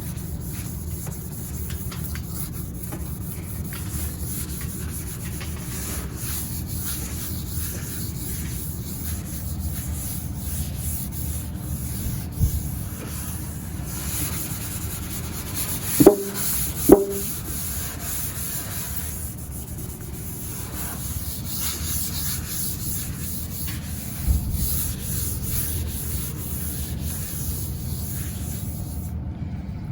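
Dual-action (random-orbital) sander running steadily on a car roof, sanding down the peeling clear coat. A little past halfway there are two sharp knocks about a second apart.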